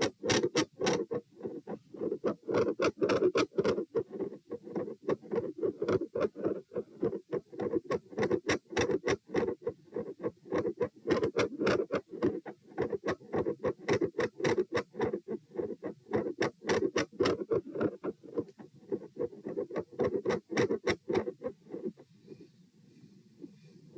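Heart sounds heard through a stethoscope over the pulmonic area: a steady, fast lub-dub rhythm of paired S1 and S2 beats, about three to four sounds a second. The beats drop out briefly near the end, then resume.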